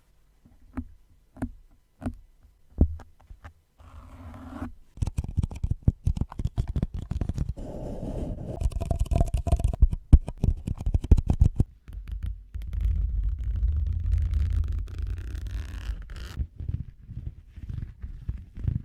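Close-miked ASMR trigger sounds made on objects. First come a few separate taps, then a long stretch of rapid scratching and scraping, then a steadier rubbing sound, with more light taps near the end.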